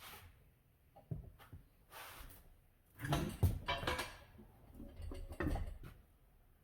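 Knocks and scraping of a manual tire changer's steel bar levering a tire's bead off the rim, loudest about three seconds in.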